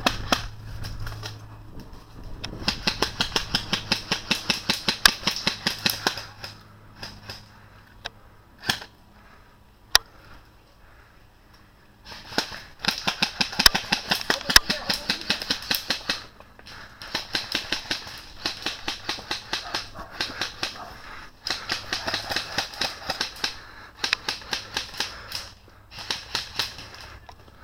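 Airsoft electric rifles firing full-auto: several bursts of rapid, evenly spaced snapping shots lasting a few seconds each, with a couple of single shots in a lull between them.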